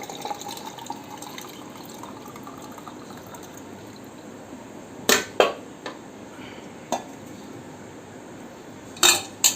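Hot herbal decoction (kashayam) being strained and poured into a cup, a steady trickle of liquid, followed by several sharp clinks of the strainer and vessel against the cup, the loudest about five seconds in and again near the end.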